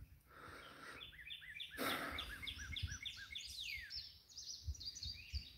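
Songbirds singing: a quick run of about six repeated chirps a little over a second in, with other higher calls and a falling whistle around them. A short rush of noise sits under the chirps about two seconds in.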